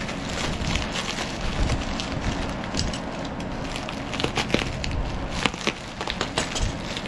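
Plastic bubble wrap crinkling and crackling as hands pull it off a wrapped bundle of files: irregular sharp crackles throughout, coming thickest from about four to six and a half seconds in, over a steady low hum of an air conditioner and fan.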